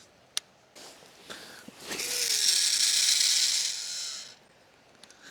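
Daiwa 25 Spider 100 baitcasting reel cast: a click, then the spool spins out for about two seconds with a loud, tractor-like rattling buzz and a falling whine as it slows, then stops. The owner puts the rattle down to the pinion gear vibrating on the spool shaft, where it has no bearing support.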